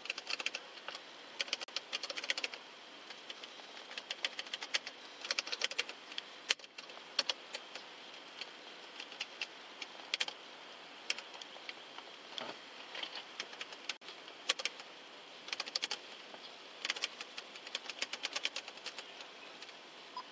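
Typing on a patrol car's in-car computer keyboard: quick runs of key clicks in bursts of a second or two with short pauses between, over a steady faint hiss.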